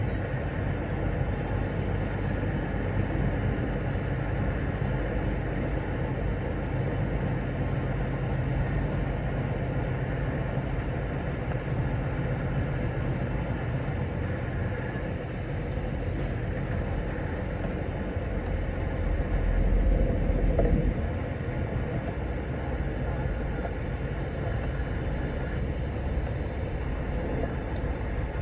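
Steady engine and road rumble heard from inside a truck's cab as it drives slowly, with a low engine hum that swells briefly about two-thirds of the way through.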